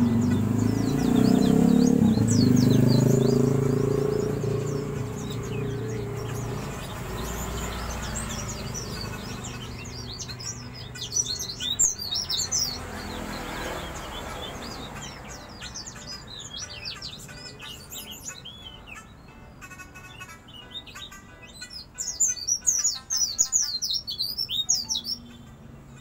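Caged white-eye (pleci) twittering in rough, rapid chattering bursts, the fast chatter hobbyists call ngeriwik, heaviest about ten seconds in and again from about sixteen to twenty-five seconds in.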